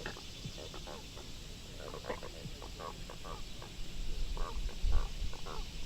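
A run of short, irregular croaks over a steady high insect buzz, with a low rumble about four to five seconds in.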